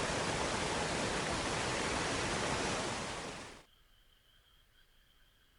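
Steady rushing roar of a waterfall, cutting off suddenly about three and a half seconds in. After that only a faint, thin, steady high tone is left.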